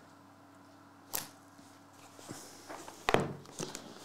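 Cardboard trading-card box being handled as its lid comes off and a smaller inner box is taken out: a single sharp click about a second in, then a short patch of cardboard scraping and knocking near the end, over a faint steady hum.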